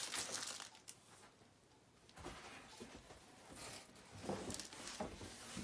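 Faint rustling and light knocks of things being handled in a cardboard box and set down, with a quiet pause about a second in.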